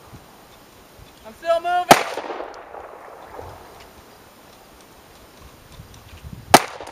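Two gunshots about four and a half seconds apart, each a sharp crack, the first with a short echo and the second the louder. A brief shouted call comes just before the first shot.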